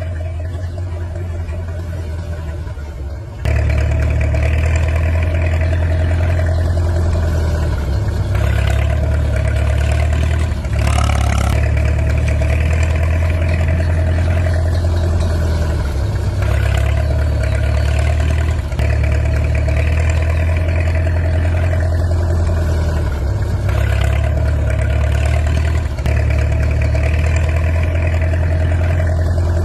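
Engine sound of an RC toy tractor: a steady, loud, low diesel-like drone with a fixed whine above it. It steps up louder about three seconds in and then runs on evenly, with small breaks every few seconds.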